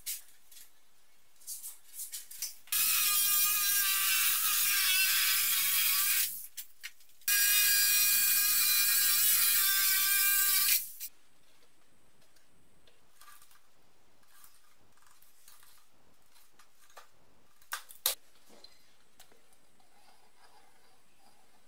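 Electric jigsaw cutting through a large sheet of board, run in two stretches of about four seconds each with a brief stop between them. Later, a couple of sharp clicks.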